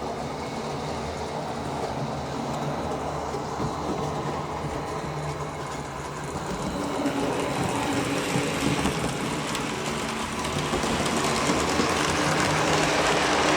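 OO gauge model Class 08 diesel shunter running along the track with wagons: a steady electric motor hum with wheel and track clatter, gradually getting louder.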